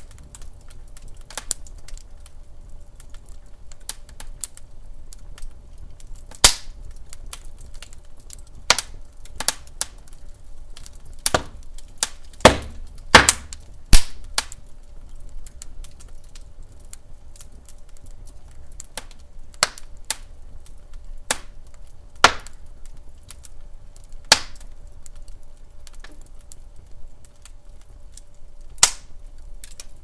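Douglas fir logs burning in a fireplace, crackling with sharp, irregular pops over a low hiss of flame. The loudest pops come in a cluster about halfway through.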